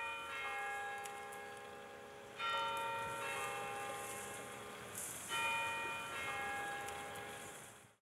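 Bell tones struck about every three seconds, each left to ring and slowly die away, over a faint high hiss; the sound fades out near the end.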